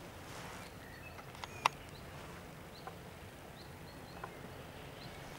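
Faint outdoor ambience with a few scattered short bird chirps, and a single sharp click about one and a half seconds in.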